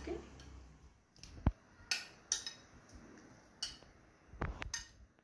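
Raw small fish pieces tipped from a glass dish into a metal bowl: a scattered series of sharp clicks and knocks from the dish and fish against the bowl.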